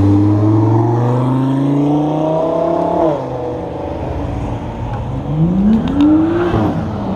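Sports car engine accelerating hard, its pitch rising for about three seconds and then falling away sharply, followed by a second, shorter rising rev about five seconds in.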